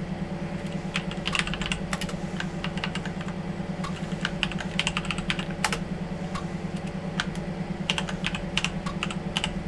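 Typing on a computer keyboard: a run of irregular key clicks starting about a second in, over a steady low hum.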